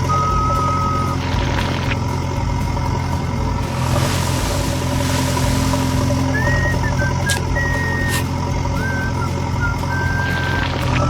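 A vehicle engine running steadily at a constant pitch, with short high whistle-like tones coming and going over it.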